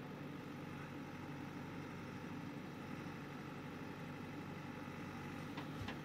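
JCB 3DX backhoe loader's four-cylinder diesel engine running steadily while its hydraulic backhoe arm lifts and swings a loaded bucket of soil. Near the end come a couple of light knocks as the first soil drops into the tipper truck's bed.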